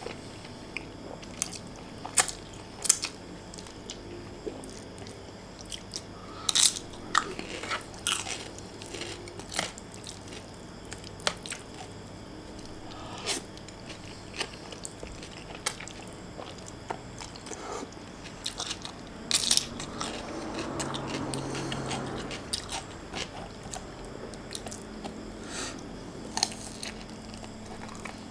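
Close-miked eating sounds: slurping and chewing fried instant noodles, with sharp crunchy bites into raw cucumber scattered through. A longer, louder noisy stretch comes about twenty seconds in.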